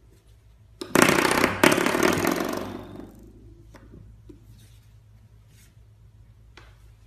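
A spring doorstop twanging twice, under a second apart, about a second in, as a puppy knocks it with its head; the buzzing ring dies away over a couple of seconds. A few faint taps follow as the puppy mouths the doorstop.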